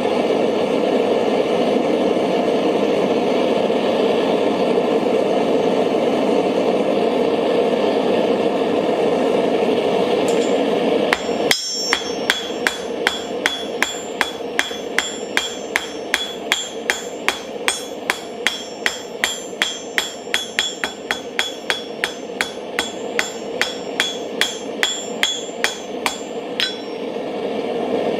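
Mr. Volcano Hero propane forge burner running with a steady rush. About eleven seconds in, a hand hammer starts forging hot steel on an anvil: about three ringing blows a second for some fifteen seconds, then it stops.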